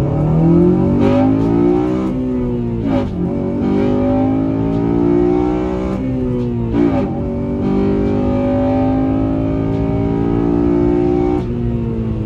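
Honda Civic Si's four-cylinder engine heard from inside the cabin, accelerating through the gears. The revs climb and drop back at gear changes about three and seven seconds in, then hold fairly steady before easing off near the end.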